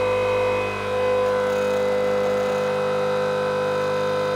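12-volt 27-lb-thrust electric trolling motor running out of water under a PWM speed controller, its propeller spinning in air. It gives a steady, even whine at one constant speed.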